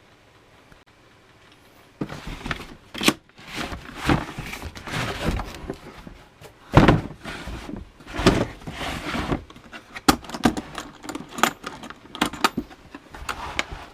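A planer's box and packaging being opened and unpacked by hand: irregular rustling, scraping and knocks of handling, starting about two seconds in.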